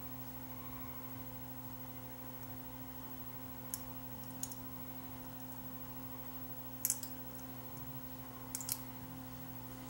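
Small, faint clicks of plastic and metal parts as the armature of a small DC motor is fitted into its plastic brush end cap: a single click about four seconds in, a quick pair near seven seconds and another pair near the end, over a steady low hum.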